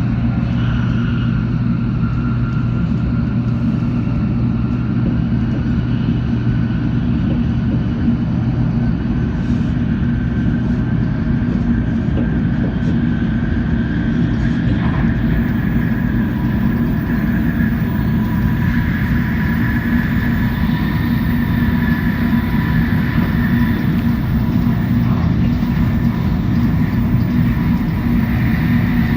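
Shinkansen Nozomi train running on the line, heard from inside the passenger car: a steady, heavy rumble with a faint whine that climbs slowly in pitch.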